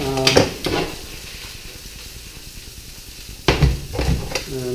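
Beef and mushrooms sizzling as they fry in a hot pan, with a utensil stirring them and one sudden knock against the pan about three and a half seconds in.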